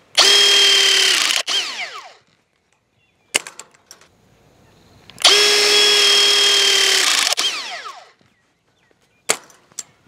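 Battery-powered plumber's press tool fitted with wire-crimping dies, squeezing an aluminium crimp sleeve onto fence wire. Its motor whines at a steady pitch, then winds down with a falling whine just over a second in. A second squeeze runs for about two seconds from five seconds in and winds down the same way, with a few sharp clicks between and after.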